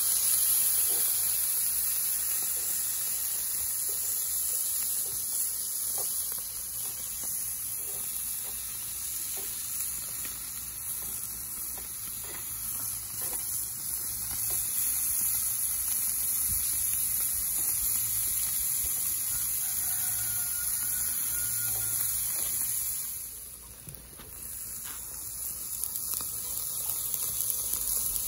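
Fish fillets and zucchini slices sizzling on a charcoal-fired cast-iron grill grate, a steady high hiss, with a few light clicks of metal tongs against the grate.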